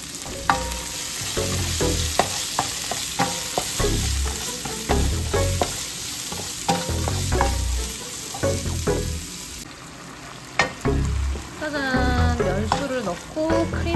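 Food sizzling in a frying pan while a utensil stirs it, with frequent short clicks and knocks of the utensil against the pan.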